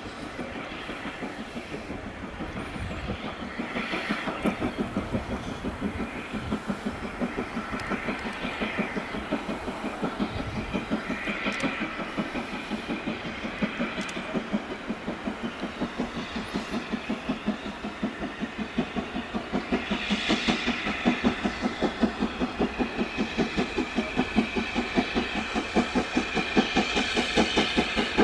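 Steam locomotive exhaust beating steadily, about two to three beats a second, growing louder as the engine approaches, with a few brief hisses of steam.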